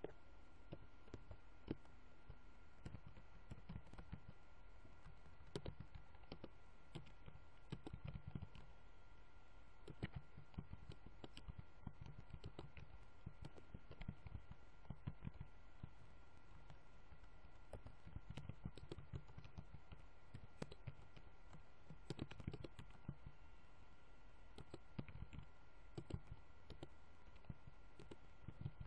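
Typing on a computer keyboard: faint, irregular key clicks in short runs with pauses, over a faint steady hum.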